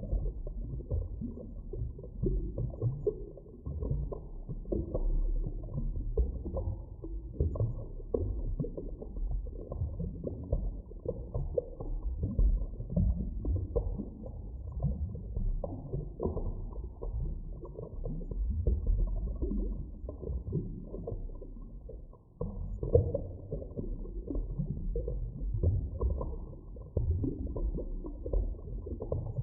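Muffled deep-underwater ambience: a continuous low rumble with irregular soft knocks and creaks, everything dull with no high sounds. It dips briefly almost to quiet about three-quarters of the way through, then carries on as before.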